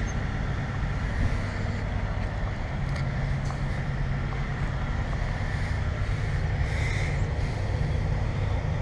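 Trane XR14 4-ton heat pump outdoor unit running steadily: the scroll compressor's low hum under the rush of the condenser fan.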